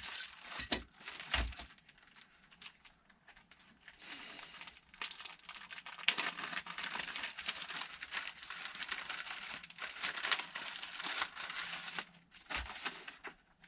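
Packaging being handled and unwrapped from a fish finder box: irregular crinkling and rustling, with a few soft knocks near the start and again near the end.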